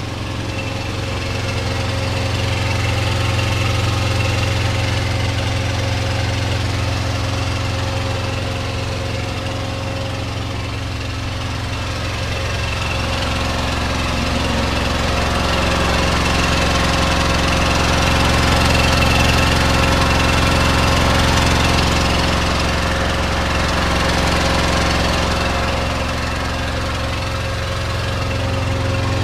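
Diesel engine of a semi-truck tractor idling steadily, with a low hum and a diesel knock.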